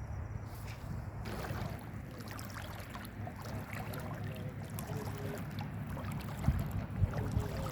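Footsteps wading through shallow sea water, each step sloshing and splashing, over a steady low rumble of the sea. Two louder splashes come near the end.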